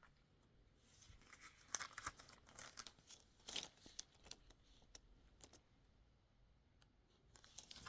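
Faint crinkling and rustling of rhinestone transfer sheets and their plastic packaging being handled, in scattered short bursts mostly in the first half and again briefly near the end.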